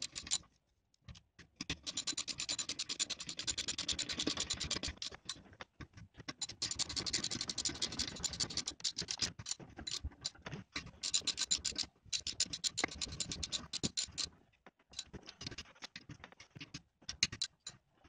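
Hand ratchet clicking in bursts of rapid strokes with short pauses between, tightening the bolts of a small lawnmower engine's housing.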